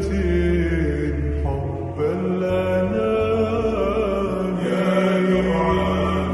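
Background music: long, chant-like held notes over a steady deep bass.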